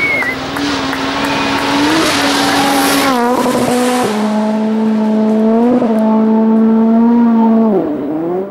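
Rally car engine running hard at high, steady revs. Its pitch drops about three seconds in, holds at a lower note, dips again near the end, and the sound cuts off abruptly.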